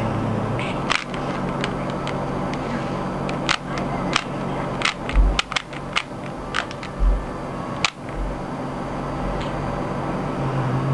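Plastic Rubik's Cube layers being twisted by hand: an irregular run of sharp clicks, thickest around the middle, over a steady low hum.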